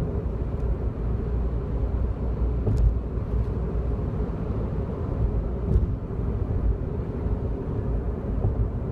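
Steady road and engine rumble inside a Daihatsu Wake's cabin while driving, with a few faint short clicks and buzzes. These come from the trim around and below the steering wheel, which buzzes with every vibration: an abnormal rattle in a one-month-old car.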